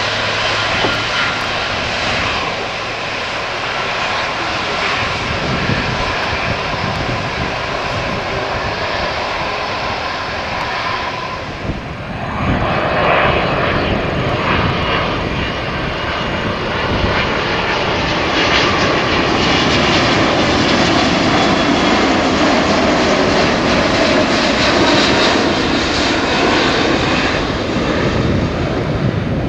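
Boeing 777 jet engines: first a 777 rolling along the runway, then, after a cut about 12 seconds in, a 777-200ER on final approach with its gear down, its engine noise growing louder as it comes close.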